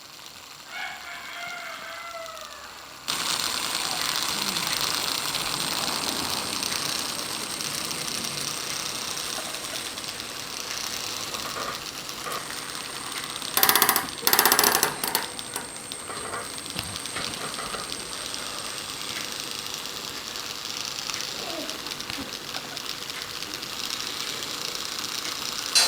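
Electric hand beater whipping egg yolks in a bowl: it starts suddenly about three seconds in and runs steadily. Two short, louder bursts come around the middle.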